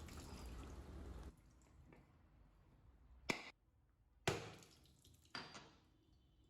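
Kitchen tap water running briefly, shutting off a little over a second in; then three sharp knocks about a second apart as a whole coconut is struck to crack it in two.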